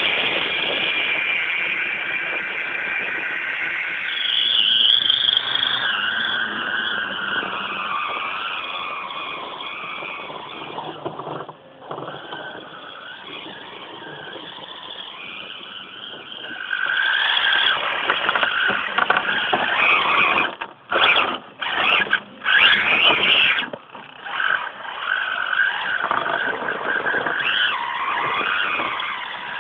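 RC rock crawler's electric motor and gearbox whining while climbing rock, the pitch wandering with the throttle, and cutting in and out several times about two-thirds of the way through.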